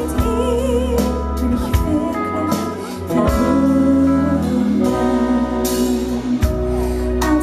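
Live band playing a slow ballad, with electric guitar carrying the melody over bass guitar and keyboard; the band grows fuller about three seconds in.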